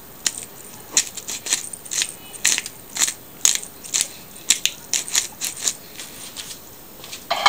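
Hand-held pepper grinder being twisted over a mixing bowl, grinding black pepper with a string of short, crunchy clicks, about two or three a second.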